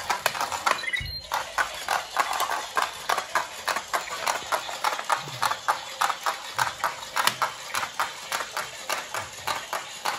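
Plastic feet of a six-legged Robo6 toy robot tapping on a wooden floor as it walks, a rapid, even clatter.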